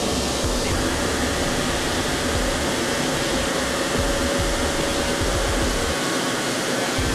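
Steady, even rushing noise with a faint steady hum underneath, unchanging throughout.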